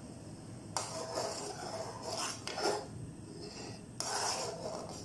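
A metal spoon stirring and scraping against the bottom and sides of an aluminium saucepan of milk. It comes in two spells, the first starting suddenly about a second in and the second at about four seconds.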